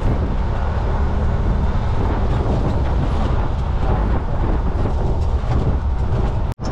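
Steady rumble of a motorbike on the move, with wind noise on the microphone. The sound cuts out for an instant near the end.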